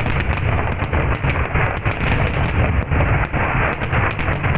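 Aerial fireworks shells bursting in rapid, overlapping succession: a steady barrage of bangs over a continuous rumble.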